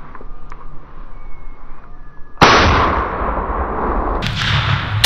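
Shotgun shots at wild turkeys: one loud blast about two and a half seconds in with a long rolling echo, followed by another shot near the end.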